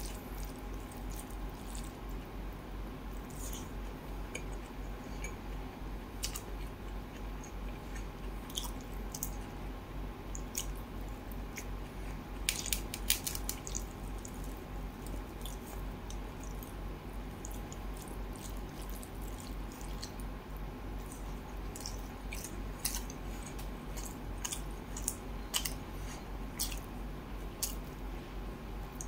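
Close-miked eating sounds: chewing of rice and fish curry and wet squishing as it is mixed by hand, with scattered sharp wet clicks and smacks, several in a quick cluster about halfway through. A steady low hum runs underneath.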